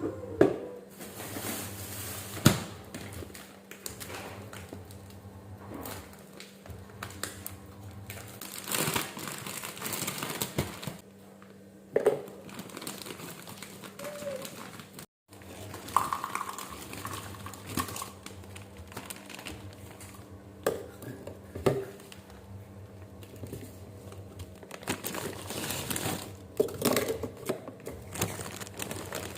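Kitchen handling sounds: crinkling and rustling, with scattered clinks and knocks of kitchenware over a faint steady hum, and a momentary dropout about halfway through.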